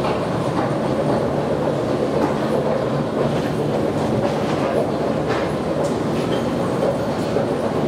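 Steady rumbling ambience of a metro station, with a few faint clicks scattered through it.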